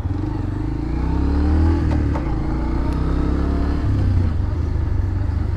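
Bajaj Pulsar 125's single-cylinder engine pulling away at low speed: its pitch rises, drops about two seconds in, then holds steady.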